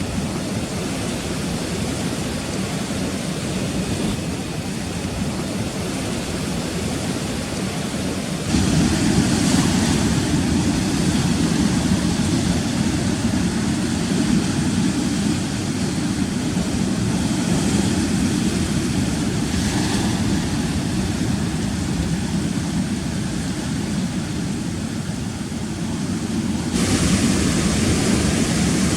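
Rough sea surf and wind on the microphone, a steady low rumbling noise that jumps abruptly louder about a third of the way in and again near the end.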